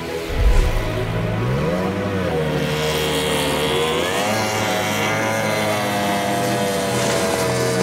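F1 racing powerboat's outboard engine at high revs. Its pitch dips and climbs again as the boat corners, then falls slowly as the boat runs away across the water. There is a low thump about half a second in.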